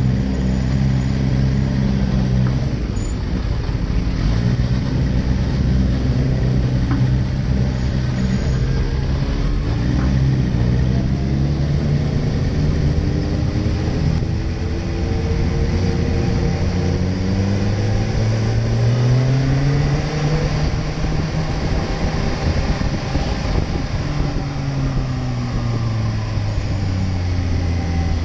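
Sport motorcycle's engine running under way, its note rising and falling as the rider speeds up and eases off, with a steady rush of wind and road noise on the microphone.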